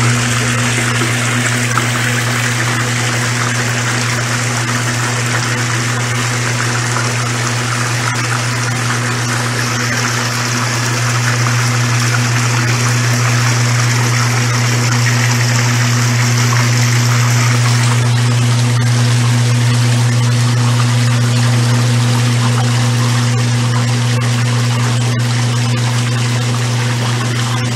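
Old Brastemp Luxo washing machine running its rinse: a steady motor hum under rushing water. The high hiss of the water lessens about two-thirds of the way through.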